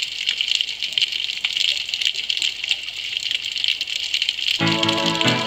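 Underwater ambience recorded on a dive camera: a steady, crackling hiss full of fine clicks. Music comes in near the end.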